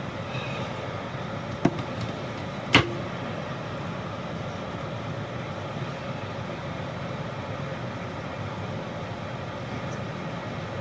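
Steady background hum, with two sharp knocks about a second apart near the start, the second one louder.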